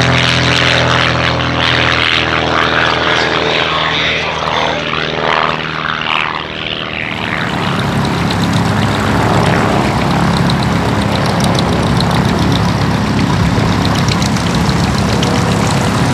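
Van's RV-8 single-engine propeller aircraft flying a fast low pass and then aerobatics. The pitched engine and propeller note fades into a rushing, wavering sound as it passes, and about seven seconds in gives way to a steadier, lower drone.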